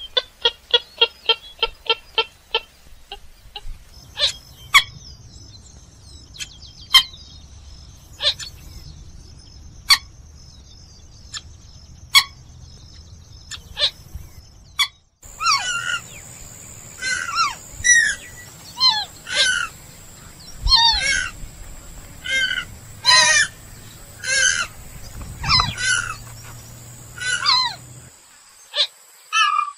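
Purple gallinule calls. A quick run of short clucking notes fades away at the start. Through the middle, sparse sharp clicks sound over a steady high whine. From about halfway, a loud series of calls follows, each note sliding down in pitch.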